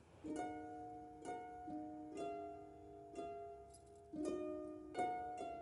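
Background music: a gentle plucked-string instrumental, with notes and small chords struck about once a second, each ringing and dying away.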